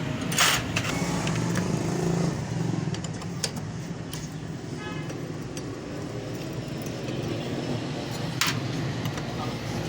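Metal hand tools clinking and tapping on Honda CD70 engine parts during disassembly of the timing side, with a sharp metallic knock about half a second in and another near the end, over a steady low hum.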